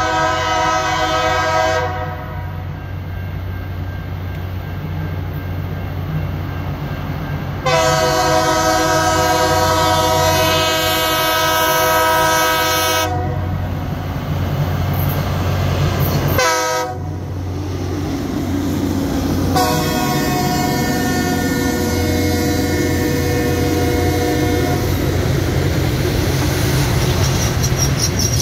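Loram rail grinder sounding its multi-chime air horn in the long, long, short, long pattern of a grade-crossing signal: a long blast ending about two seconds in, a second long blast, a brief short one, and a final long blast. A steady diesel engine rumble runs under the horn, and near the end the train passes close by with rolling wheel and machinery noise.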